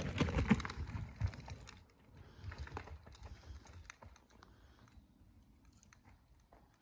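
Children's 20-inch mountain bike riding over a forest trail, tyres crunching and crackling on twigs and needles. It is loudest as it passes close in the first two seconds, then fades as it rides away.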